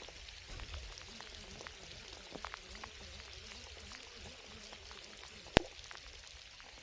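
Rain pattering steadily, with many small drops ticking. There is a single sharp knock about five and a half seconds in.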